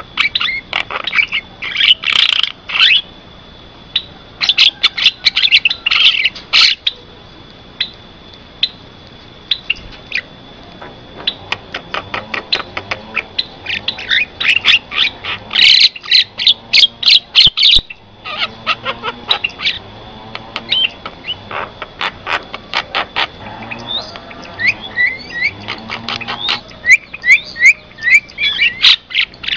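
Javan myna calling: loud bursts of rapid, sharp clicking chatter, broken by short pauses, then quick whistled notes near the end. A faint steady high tone runs underneath.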